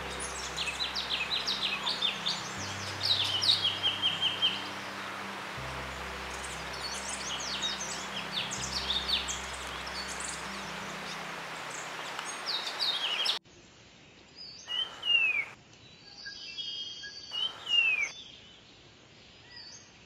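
Golden-fronted leafbirds chirping and singing in rapid, high twittering phrases, over background music with low held notes. About thirteen seconds in, the sound cuts to a quieter recording of another bird giving a few separate down-slurred calls.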